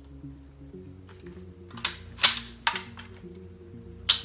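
Metallic clacks of a civilian C7-pattern (AR-15-type) rifle's action being worked during a safety check, three in quick succession around the middle, then a sharp click near the end as the rifle is shouldered and the trigger dry-fired. Background music plays underneath.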